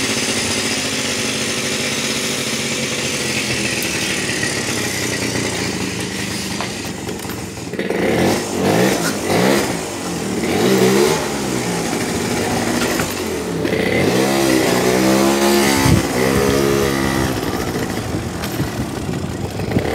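Yamaha Razz scooter's small two-stroke engine running. It idles steadily for the first several seconds, then revs up and down repeatedly as the scooter pulls away and rides, with the revving strongest a few seconds before the end.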